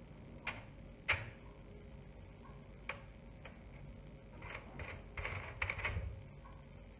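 A metal spoon clicking and scraping as a sticky coconut and condensed-milk mixture is spooned out of a bowl into a parchment-lined tin: a few sharp taps, the loudest about a second in, then a run of scraping and paper crinkling near the end.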